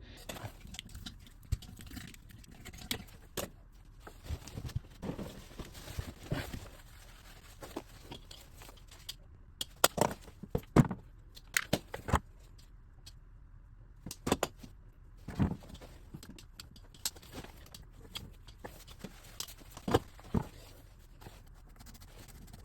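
Irregular clicks, knocks and rattles of hands handling plumbing parts while refitting a urinal's waste fitting, with a cluster of louder knocks about ten seconds in.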